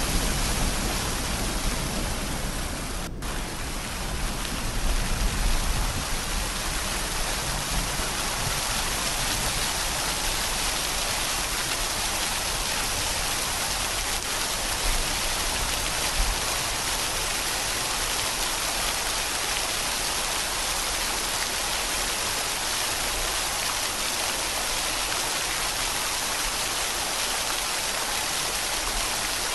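Steady rain falling, an even hiss, with a low rumble of distant thunder over the first few seconds.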